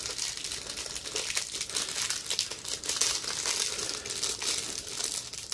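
Clear plastic bag crinkling continuously as hands handle it, with fine crackling throughout.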